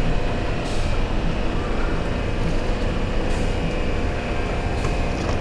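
Yamaha 150 outboard engine idling steadily, with a few short hisses.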